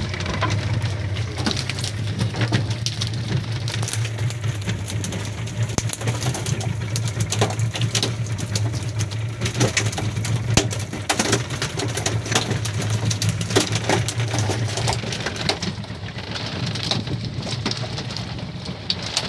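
Small fishing boat's engine running steadily, with a scatter of short, irregular knocks and rattles.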